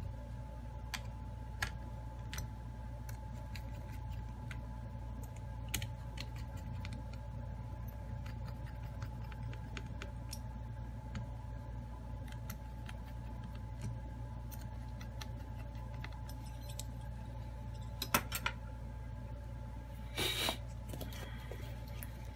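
Scattered light clicks and ticks of small tools and smartphone parts being handled on a repair mat, over a steady low hum. A couple of sharper clicks come about 18 seconds in, and a brief scraping rustle follows about two seconds later.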